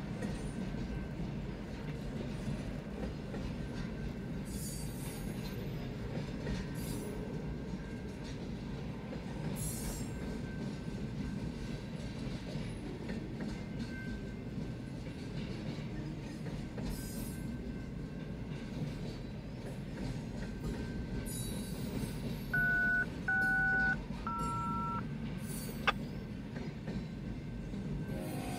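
Intermodal train cars loaded with trailers rolling past a grade crossing: a steady low rumble with recurring brief high wheel squeals. About 22 seconds in come three short two-tone beeps, then a single sharp click.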